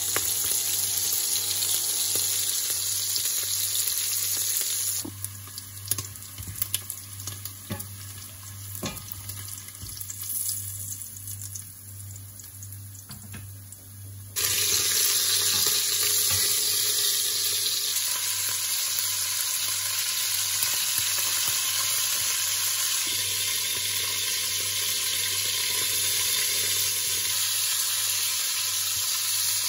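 Meat sizzling as it browns in hot oil in a pan, with a quieter stretch in the middle broken by a few utensil knocks. The sizzling comes back loud and steady about halfway through.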